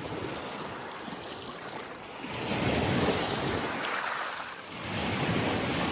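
Lake waves washing onto the shore, two swells rising and falling, the first about two seconds in and the next near the end, with wind on the microphone.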